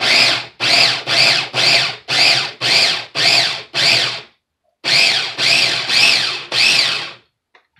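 Electric mini food chopper pulsed in short bursts, about two or three a second, chopping onion; each pulse is a brief whir that rises and falls in pitch. A short break a little past halfway, then several more pulses that stop shortly before the end.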